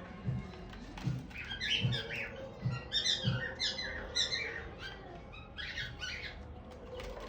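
Cockatiels giving short, harsh chirping calls in quick clusters, with a few soft low thuds underneath.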